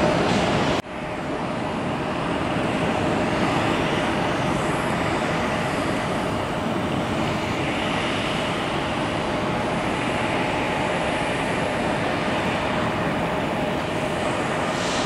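Steady jet engine noise from a Boeing 737 rolling along the runway, heard at a distance as an even rushing sound. Just under a second in there is a sudden break where a slightly louder steady noise cuts off and the jet sound takes over.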